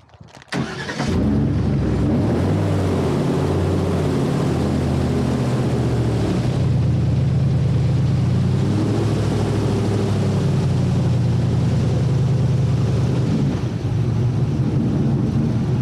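Airboat's engine and propeller coming up to power about half a second in, then running loud and steady as the boat moves off, its pitch rising and falling a little with the throttle.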